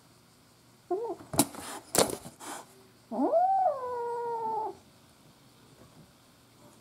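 Kitten about 50 days old shut in a plastic carrier: a short call about a second in, then two sharp spitting bursts, then one long defensive yowl that rises in pitch and holds steady for about a second and a half. This is the sound of an angry, frightened kitten.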